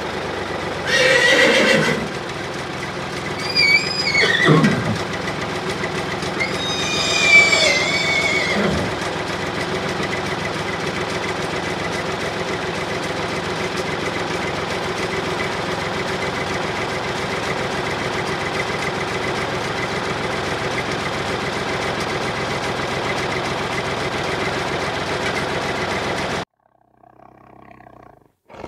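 A horse whinnying three times in the first nine seconds, each call falling in pitch, over a steady motor hum that stops abruptly a couple of seconds before the end.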